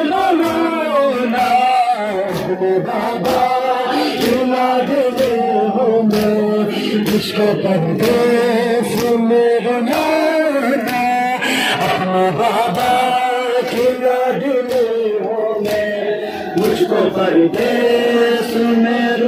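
Male voices chanting a Muharram nauha, a mourning lament, in a steady rhythm, with regular sharp strikes about once or twice a second that fit the mourners' matam, rhythmic chest-beating.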